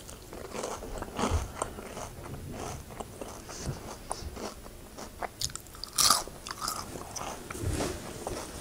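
A person biting and chewing crisp, charred barbecued salmon close to a clip-on mic: crunching and small wet mouth clicks, with the loudest crunch about six seconds in.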